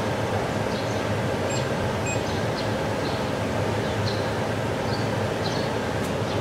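Water-cooled handheld fiber laser welding machine running after switch-on: its cooling unit gives a steady fan-like noise with a low hum, with a few faint short high chirps on top.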